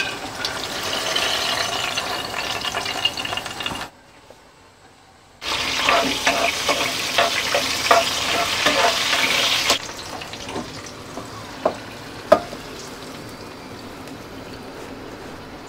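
Hot oil sizzling in a wok as peanuts, then red chilies and garlic cloves fry and are stirred with a wooden spatula, with small scrapes and clicks. The sound drops out briefly about four seconds in and comes back louder; near ten seconds in the sizzle dies down to a faint hiss with a few sharp knocks of the pan.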